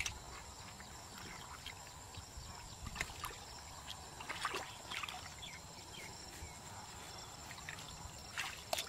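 Hands groping through shallow muddy water, giving small splashes and sloshes every second or two, with the loudest pair near the end, over a steady high-pitched hum.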